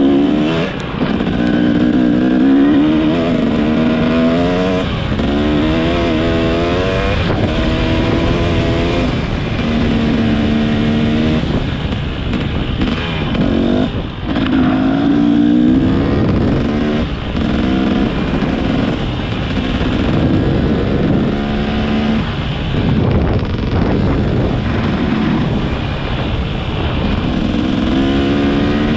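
Motorcycle engine heard while riding, its pitch rising and dropping back again and again as the throttle is opened and eased off through the gears, over a steady rushing noise.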